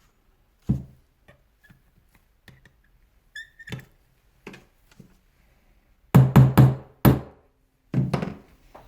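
Hammer blows knocking at the jammed impact mechanism inside a Hilti TE 40 AVR rotary hammer's housing: light taps and clinks with a short metallic ring, then a quick run of four heavy knocks, another, and two more near the end. The part is stuck crooked in the housing and will not come out.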